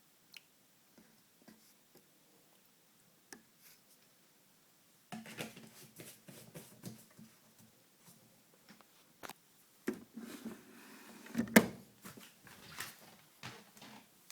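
Irregular handling noises: scattered clicks, knocks and rustling, with one sharp, louder click near the end.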